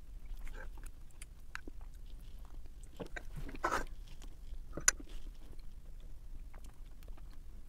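Close-miked eating of chicken rice porridge: soft chewing and mouth sounds with small clicks, a short noisy rustle about three and a half seconds in, and one sharp clink of a metal spoon on the ceramic bowl about five seconds in.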